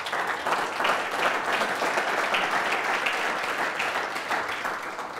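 Audience applauding, a dense steady patter of many hands clapping that eases off slightly near the end.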